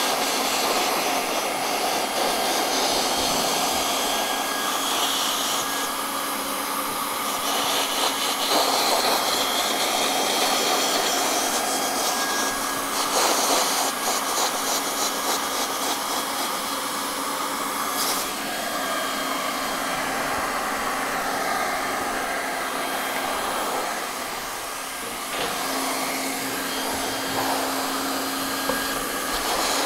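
Hand-held hot-air welding gun blowing steadily, a continuous rush of air with a faint hum underneath, as it heats and welds a single-ply gutter liner membrane seam that is pressed down with a roller.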